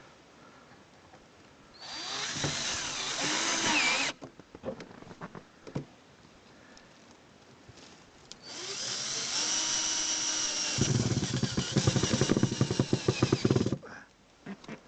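Hand-held power drill run twice, its motor pitch bending up and down; the second, longer run turns into a fast rattle about halfway through.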